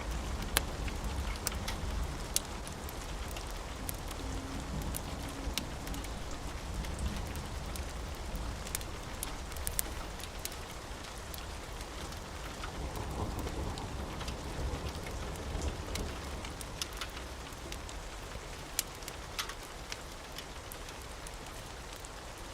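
Steady rain with a continuous low rumble of distant thunder underneath, and scattered sharp pops and crackles from a wood fire in a fireplace.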